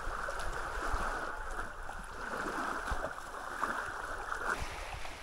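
Small waves lapping and washing over sand and against rocks at the water's edge.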